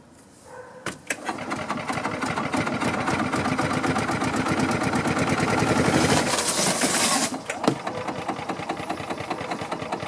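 Golf cart's gasoline engine being cranked by its starter: a fast, even chugging that builds over about five seconds, then goes on as a lighter rattle. It cranks without running because the engine is not getting fuel.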